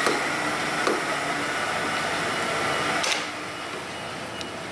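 Steady machine whir, dropping in level about three seconds in, with a few light clicks of a hand tool against the scooter's armrest mounting.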